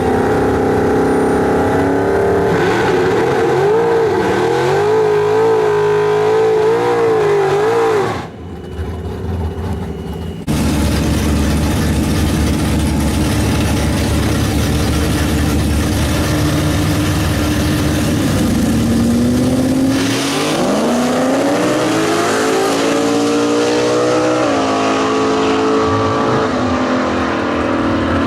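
Drag-racing vehicle engines. The pitch wavers with revving for several seconds. There is a brief dip about eight seconds in, then steady running. In the last several seconds the pitch climbs as a vehicle accelerates.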